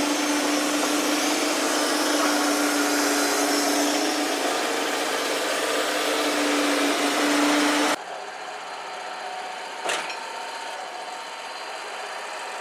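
Wood-Mizer LT35 portable band sawmill running steadily through a cut, a loud, even machine sound with a steady hum. About eight seconds in it drops suddenly to a quieter engine running, with a single click a couple of seconds later.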